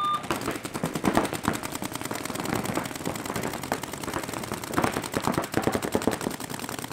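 Paintball markers firing fast strings of shots, many sharp pops a second.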